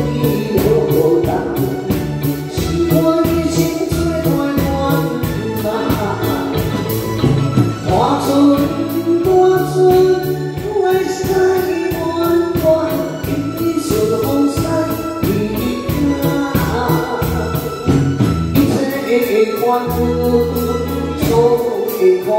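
A woman singing into a microphone over live band accompaniment, with keyboard, electric guitar and a steady drum beat.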